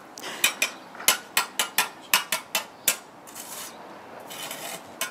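A breeze block being tapped down into its mortar bed: about ten sharp knocks in quick succession over three seconds, then two short scrapes and a final knock.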